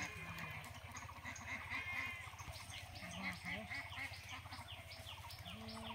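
Birds calling: pitched, waterfowl-like calls in the first two seconds, then a short falling call repeated about three times a second, with a low steady drone underneath.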